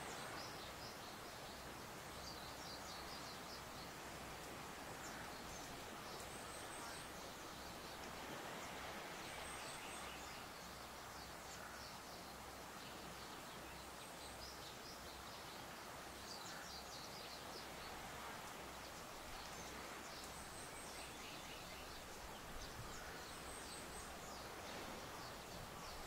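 Quiet, steady rustle of breeze through tall grass, with short series of high bird chirps recurring every few seconds.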